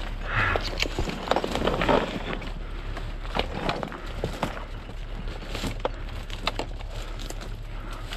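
Dry brush crackling and twigs snapping underfoot as someone scrambles down a steep, overgrown slope: irregular crunching steps and rustles, busiest in the first two seconds.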